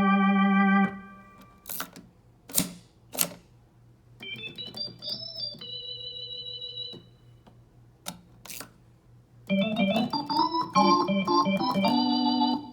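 Hammond XK2 organ being played through an amp. A held chord stops about a second in, followed by a few sharp clicks, then a soft high chord with a short melody in the middle, and a busy run of chords and fast notes near the end.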